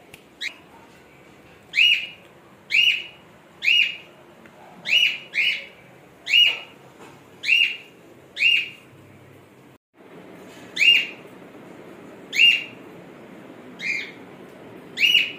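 A bird giving a short, sharp chirp over and over, about one call a second, each call dropping in pitch, over a faint steady background hiss.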